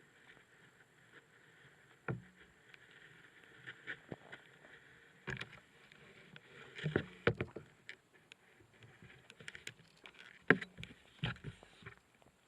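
Kayak paddling: the paddle dips and splashes in the water, with irregular knocks.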